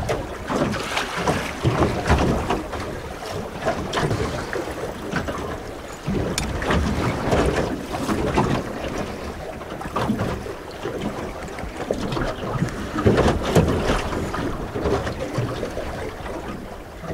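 Wind buffeting the microphone over choppy water slapping and splashing against a small aluminium boat's hull, in uneven gusts and slaps with no steady engine tone.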